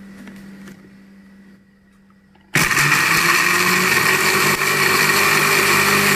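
Countertop blender, its jar first clicked onto the base, then switched on about two and a half seconds in and running at a steady speed, blending chopped herbs and spices with water into a paste.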